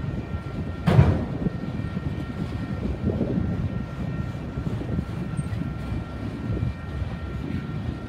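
Autorack freight cars rolling past, a steady low rumble of steel wheels on rail with faint steady high tones over it. One sharp bang about a second in is the loudest moment.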